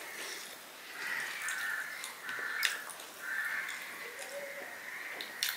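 Crows cawing in the background, several harsh caws in a row, with a couple of sharp clicks, the loudest about two and a half seconds in and another near the end.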